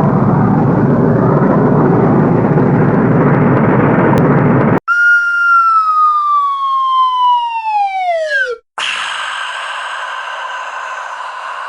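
A run of hip-hop DJ sound-effect samples: about five seconds of loud, dense noise that stops abruptly, then a single pitched tone sliding steadily downward for about four seconds, then a steady buzzy tone.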